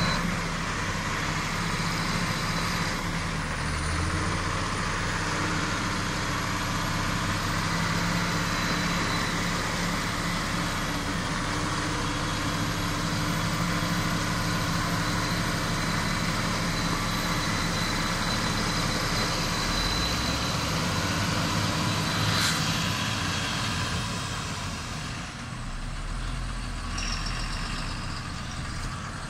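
Heavy diesel engines of a John Deere farm tractor and a MAN truck running steadily at a constant pitch, with one brief click about two-thirds of the way through.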